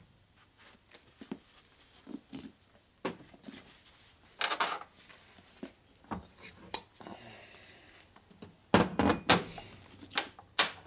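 Aluminium Harley-Davidson Evo cylinder head being handled, turned over and set down on a metal workbench: scattered knocks, scrapes and small-part clicks, the loudest cluster about nine seconds in.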